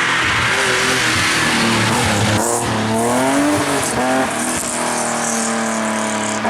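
Rally car engine at full throttle, its pitch climbing and dropping in steps as it changes gear, with a couple of sharp pops in the middle, then holding a steady high note near the end.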